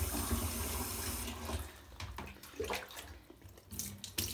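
Shower water spraying onto a wet dog and the shower tray, cutting off after about a second; then a few scattered splashes and light knocks.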